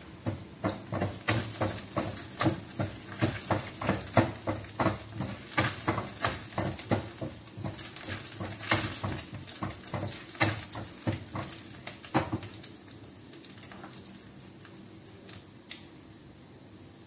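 Wooden spatula scraping and knocking against a stainless steel pan while stirring small chopped pieces frying in oil, a couple of strokes a second over a faint sizzle. The stirring stops about twelve seconds in, leaving only the faint sizzle and a few stray knocks.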